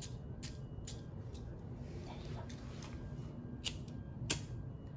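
Handheld lighter clicking repeatedly as it is struck to light a birthday candle: a run of sharp clicks, the two loudest about three and a half and four and a quarter seconds in, over a steady low hum.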